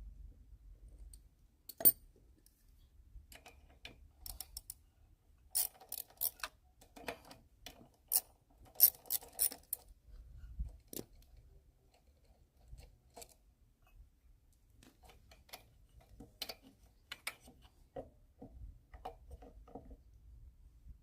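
Small metal parts being handled and rummaged through: scattered clicks and clinks, busiest in a cluster from about five to ten seconds in, with a sharp clink near two seconds in.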